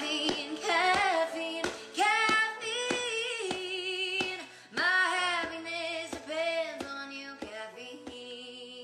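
Background music: a woman singing a slow, wavering melody over instrumental accompaniment.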